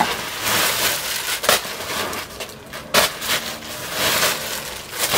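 Plastic bags of clothing crinkling and rustling as they are rummaged through by hand, with a few sharp crackles.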